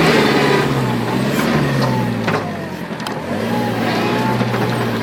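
Site dumper's engine running as it is driven, its note dropping about halfway through and then holding steady, with a few knocks and rattles over it.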